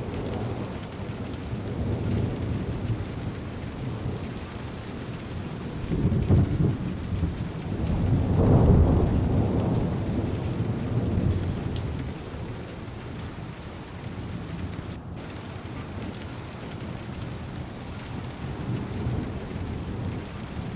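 Heavy rain falling steadily on a car window, with thunder rumbling: a short rumble about six seconds in and a longer, louder roll a couple of seconds after.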